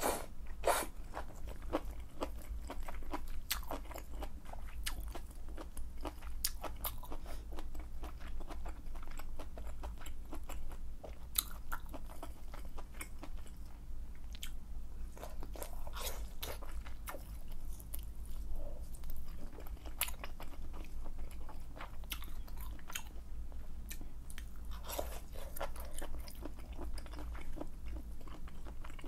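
Close-miked eating sounds of malatang: wet chewing and biting of noodles and tofu skin, with many irregular smacking clicks. There are longer slurps of noodles near the start and again near the end.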